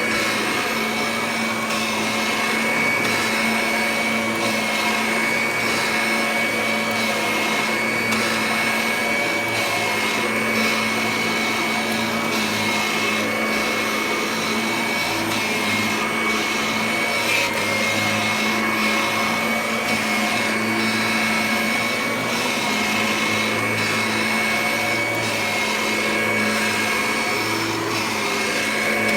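Kirby Ultimate G upright vacuum cleaner running steadily while vacuuming, a constant motor hum with a steady high whine over it.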